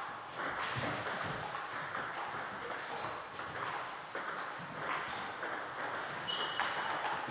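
Table tennis balls clicking off bats and table tops in rallies, a steady run of short sharp ticks, with play at neighbouring tables mixed in.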